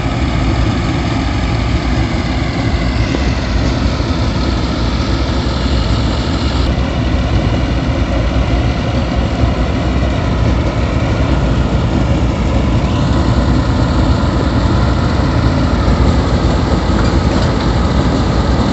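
Diesel engine of a tractor-mounted rice harvester running steadily up close, loud and unbroken, with slight shifts in its higher whine a few times.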